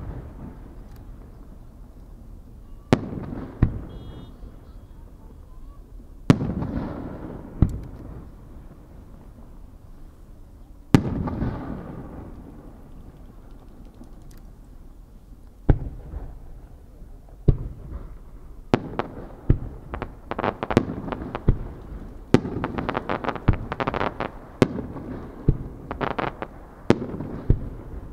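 Aerial firework shells by Marugo bursting: several single booms a few seconds apart, each trailing a long echoing rumble, then from about two-thirds of the way in a fast run of many sharp bangs.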